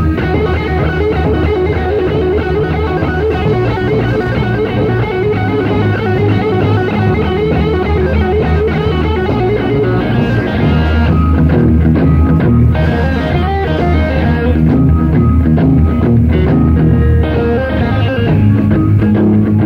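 Live blues-rock band playing an instrumental: electric guitar lead over bass guitar, drum kit and keyboards, loud and steady throughout.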